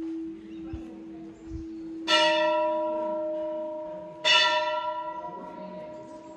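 Brass temple bell struck twice, about two seconds apart, each strike ringing on and fading slowly. A steady low hum runs underneath.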